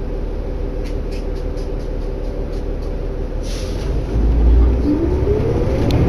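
Inside a 2011 New Flyer D60LFR articulated diesel bus: the engine drones steadily under a run of light, rapid ticks, and a short air hiss comes about three and a half seconds in. Then the engine pulls harder and a whine rises steadily in pitch as the bus accelerates.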